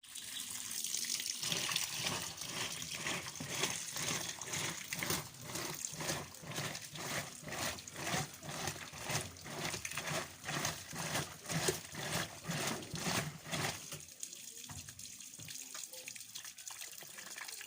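Washing machine agitator churning water back and forth with a rhythmic swish-swish, about two strokes a second. It stops about fourteen seconds in, leaving a quieter steady hiss of water.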